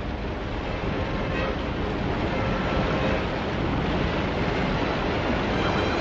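Rushing water of a big cartoon waterfall, a dense steady noise that grows louder over the first few seconds.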